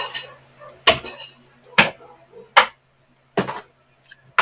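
A series of sharp knocks, about one a second, each with a short ringing tail, over a faint steady low hum.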